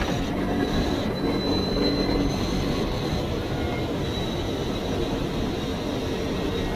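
CFMoto CForce 800 ATV running under way: a steady low engine and drivetrain rumble with a thin high whine over it.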